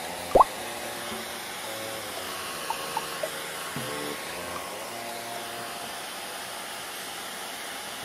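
Handheld hair dryer blowing steadily, a constant airy hiss. Quiet background music plays under it, and about half a second in a short, loud rising chirp sounds once.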